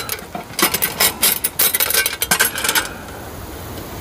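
Metal panels and wire frame of a folding flatpack wood stove clinking and rattling as it is unfolded by hand: rapid metallic clicks for about two seconds, then quieter handling near the end.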